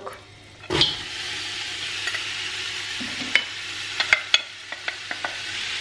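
Sliced onions dropping into hot melted butter in a stainless-steel pot and starting to sizzle, a steady frying hiss. A few light clicks between about three and five seconds in as the last onion is scraped from the glass bowl with a wooden spoon.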